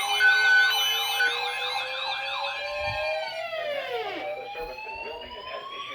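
Several emergency sirens sounding together: a fast yelp, about three rises and falls a second, over a slow wail. About three and a half seconds in, the yelp stops and the tones drop sharply in pitch, as a siren winding down does, before a slow wail rises again.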